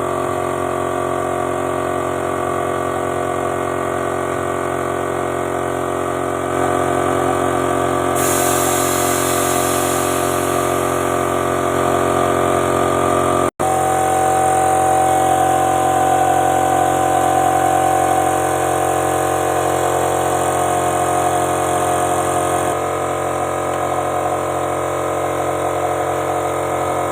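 Workshop machinery running with a steady, unchanging drone. It cuts out abruptly for an instant about halfway through, then carries on at a slightly different pitch.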